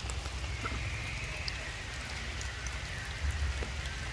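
Light rain: a steady hiss with scattered small drip ticks, over a low rumble.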